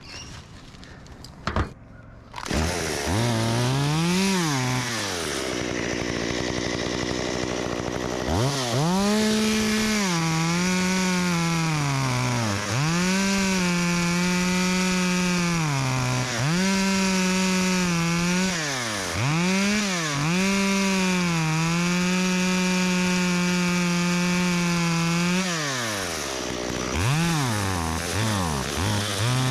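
Chainsaw starting up about two seconds in, revving once and idling briefly, then running at high revs in long steady bursts with short drops in pitch between them as the throttle is let off, cutting wood.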